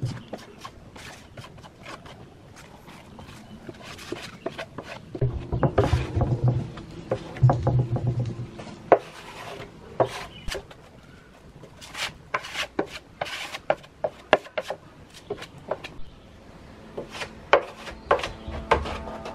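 Brush and scraper strokes scraping and rubbing on a plywood speaker box as a black coating is spread, in irregular strokes. A low hum sounds for a few seconds in the middle.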